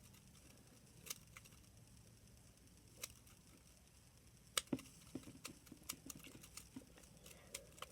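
Small slinky's coils clicking and clattering lightly as it is played with in the hands: a few single clicks at first, then a quicker run of light clicks in the second half.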